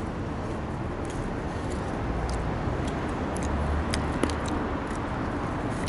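Steady rumble of city street traffic, with a scattering of short faint clicks over it.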